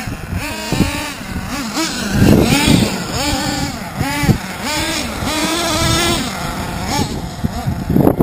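Twin .26 nitro engines of a Hot Bodies Lightning GTX2 RC monster truck revving up and down in quick repeated bursts, each rise and fall lasting under a second, as the truck is driven.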